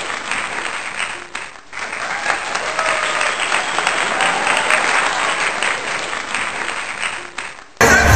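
A crowd applauding, with scattered voices mixed in. Near the end it cuts abruptly to loud music.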